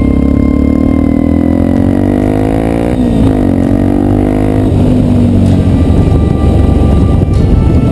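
Yamaha Ténéré 250 motorcycle engine running under way, its pitch rising for about three seconds and then falling away, turning rougher and noisier in the second half.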